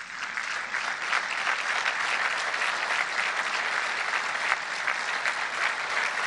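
Large crowd applauding, a steady wash of many hands clapping at an even level.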